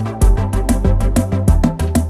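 Background music made from samples, with a steady beat of quick percussive hits over a held bass line.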